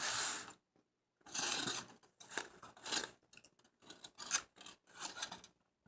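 Close-miked eating of a burger: a run of short, crisp, crackly noises, a few longer ones first, then many quick ones.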